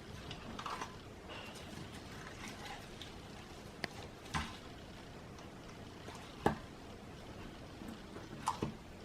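Iceberg slime being pressed and torn so that its hardened top crust cracks: scattered sharp crackles with soft squishing between them, the loudest crack about six and a half seconds in.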